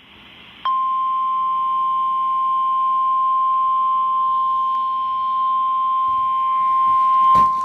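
NOAA Weather Radio 1050 Hz warning alarm tone: one steady, loud, high beep that starts just under a second in and holds. It is the signal that a warning is about to be read, here a severe thunderstorm warning. A click sounds near the end.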